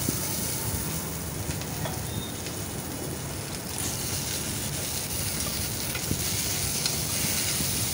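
Sliced onions sizzling steadily as they fry in hot ghee in an aluminium pressure cooker, stirred now and then with a steel ladle that ticks faintly against the pot.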